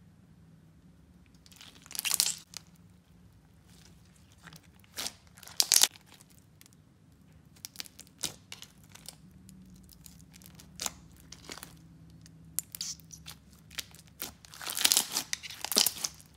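Hands squeezing and stretching a bead-filled slime, crunching and crackling in irregular bursts, loudest about two, six and fifteen seconds in.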